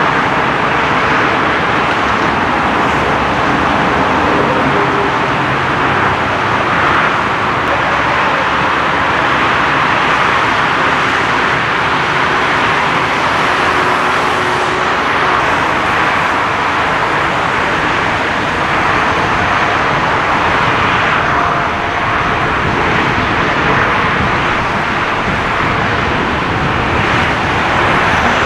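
Jet engines of a Thai Airways Airbus A380 and nearby airliners running at taxi power: a loud, steady rush of turbofan noise with no sudden events.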